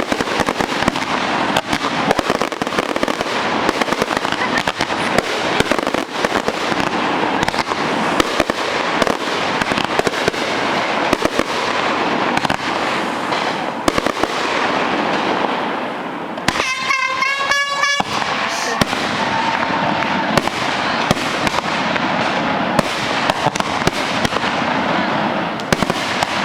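Fireworks display: a dense, continuous run of bangs and crackling, with a whistling firework sounding a wavering whistle for about a second and a half around two-thirds of the way through.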